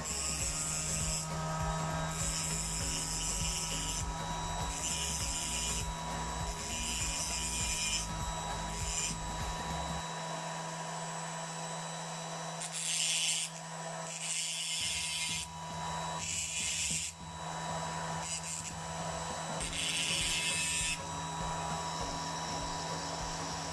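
Hand work on a small electric hair trimmer: a steady low hum runs throughout, broken by repeated short bursts of scraping or rubbing.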